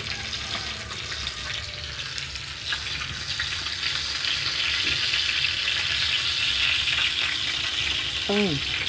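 Whole tilapia frying in hot oil in a pan, a steady sizzle that grows louder about four seconds in.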